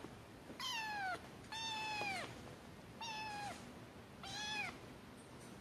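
Kitten mewing: four short, high-pitched mews, each dropping in pitch at the end.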